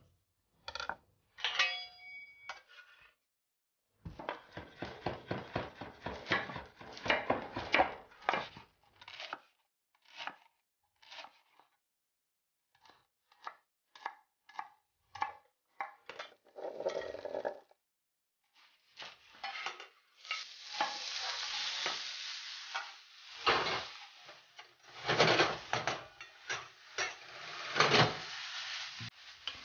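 Kitchen knife chopping on a wooden cutting board: a fast run of sharp taps, then sparser ones. From about 20 seconds in, food sizzles steadily in a frying pan, with a few knocks of a utensil against the pan.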